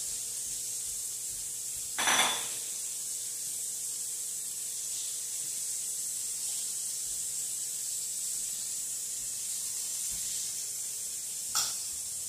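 Steady hiss of food sizzling in a frying pan on the stove, with a short knock of kitchenware about two seconds in and a smaller one near the end.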